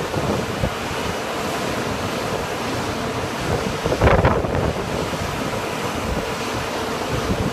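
Steady wind buffeting the microphone, with a louder gust about four seconds in.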